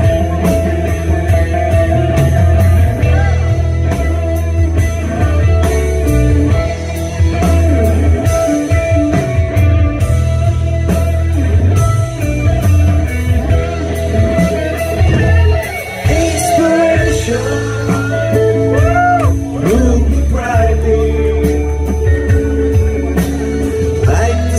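Live rock band playing: electric guitar, bass, drums and keyboards, with a steady bass line under regular drum hits and a lead line that bends in pitch in the second half.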